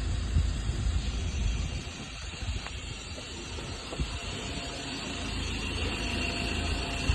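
2015 Ford Ranger's 2.2 litre four-cylinder diesel running, a steady low rumble under a broad rushing noise that eases off briefly about two seconds in and builds again toward the end. It is the noise the owner cannot place and is asking about.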